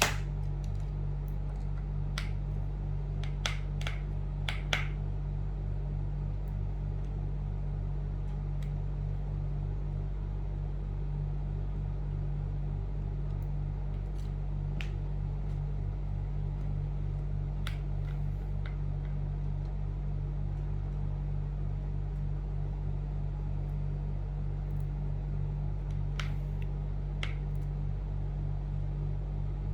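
Scattered small, sharp clicks and taps of laptop parts and screws being handled, several close together in the first few seconds, then single ones spread apart. A steady low electrical hum runs underneath.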